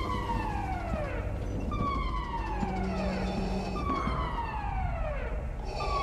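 Starship alarm siren: a falling wail that repeats about every two seconds, over a steady low rumble.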